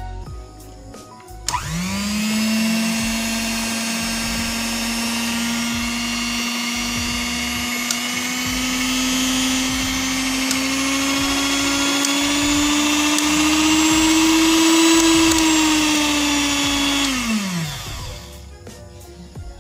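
SOGO SG-1506 hand mixer's 120 W motor switched on about a second and a half in, running with its beaters spinning in the air: a steady whine whose pitch creeps slowly higher. It is switched off about seventeen seconds in and winds down to a stop.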